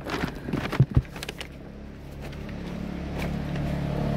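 Two sharp knocks about a second in, then a motor vehicle's engine running at a steady pitch and growing gradually louder as it nears.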